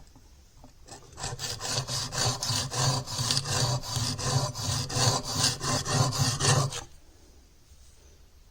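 Chisel bevel, clamped in a honing guide, rubbed back and forth on a wet sharpening stone: a rhythmic scraping of about four strokes a second. It starts about a second in and stops abruptly after about six seconds.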